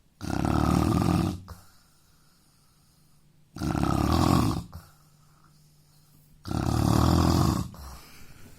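A man snoring loudly in his sleep: three snores about three seconds apart, each lasting just over a second, with quiet between them.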